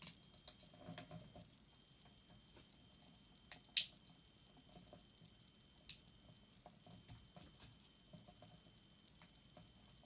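Faint handling of a plastic right-angle GK 13-pin connector housing, with two sharp clicks about two seconds apart in the middle as the housing pieces are pressed and snapped together.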